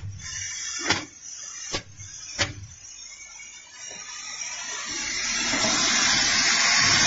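Steady rushing machine noise that drops away at the start, leaving three sharp knocks under a second apart. The noise then swells back up gradually over the last three seconds.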